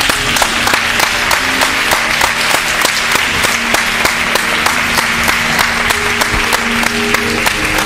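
Congregation applauding, with sharp claps standing out about three times a second, over music holding steady low notes.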